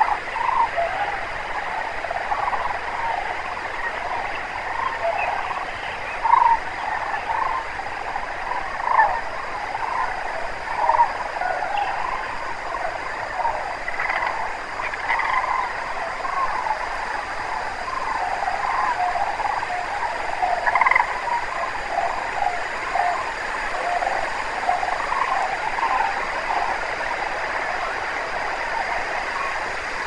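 A large flock of sandhill cranes calling together: many overlapping rolling, rattling calls in a continuous chorus, with a few louder calls standing out now and then.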